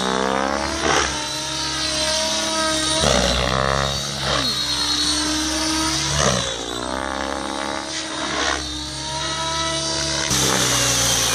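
Blade 700X electric RC helicopter in aerobatic flight: the rotor and motor whine swoops up and down in pitch every couple of seconds as it manoeuvres.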